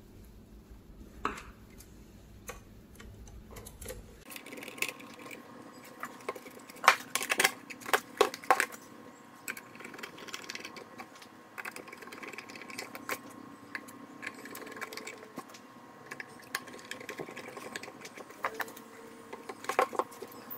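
Scattered clicks, taps and knocks of hands handling a thermal receipt printer's plastic housing and a screwdriver driving screws into its base, with a cluster of sharper knocks a few seconds in and a few more near the end.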